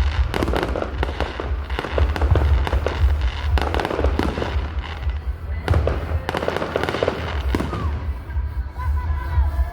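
Fireworks display: a dense run of bangs and crackling shell bursts over a heavy low rumble, with wavering pitched tones joining in near the end.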